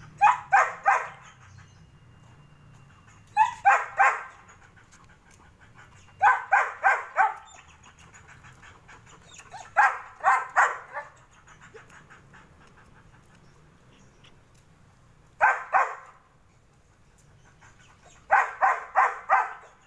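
German Shepherd barking in six short volleys of three to five rapid barks each, with pauses of a few seconds between volleys.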